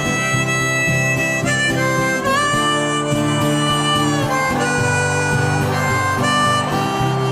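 Harmonica playing a melody of held notes with a few sliding bends, over strummed acoustic guitar: the instrumental intro of a folk song's karaoke backing track.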